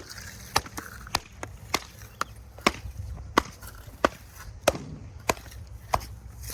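Concrete stamp mats being tamped down into setting concrete: a steady run of sharp knocks, about two a second.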